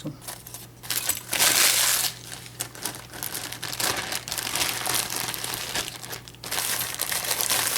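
Packing material being crumpled and pulled off a lock by hand: a dense crackle, loudest about a second and a half in, with a short lull near the end.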